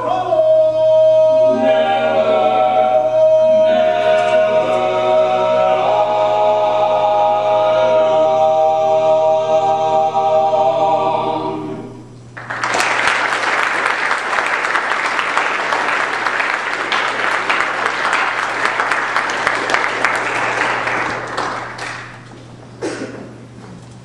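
Male vocal quartet singing a cappella in harmony, ending on a held chord about halfway through. Then an audience applauding for about ten seconds, dying away near the end.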